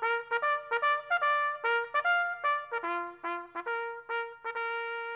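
Brass fanfare: a quick run of short, separately tongued notes, ending on a long held note that rings on and fades.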